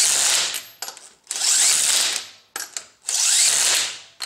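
Cordless impact wrench spinning lug nuts onto a car's wheel studs, in three runs of about a second each with short pauses between them.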